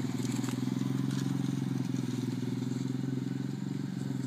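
Small engine of a ride-on vehicle with a homemade snowplow running steadily at an even speed while plowing a driveway.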